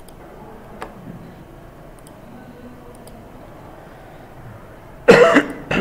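A man coughing twice near the end, two short loud bursts a little apart, over faint room background. A faint click comes about a second in.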